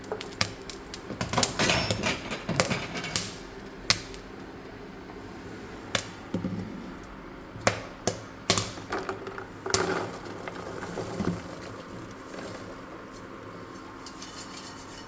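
Popcorn popping in a stainless steel pot: irregular sharp pops, thick in clusters at first, then thinning out to almost none over the last few seconds as the popping nears its end, the sign that the popcorn is nearly ready.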